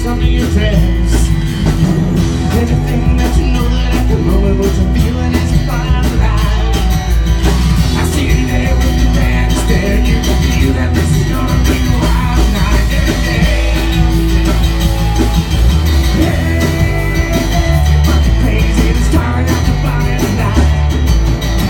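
Rock band playing loud and steady through a live song, recorded in the room.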